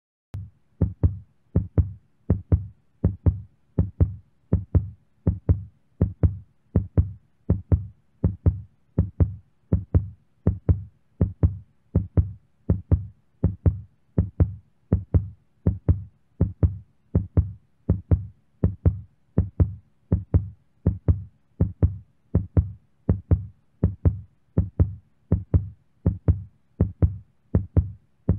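Heartbeat sound effect: a steady, even rhythm of paired low thumps, a louder beat followed closely by a softer one, lub-dub.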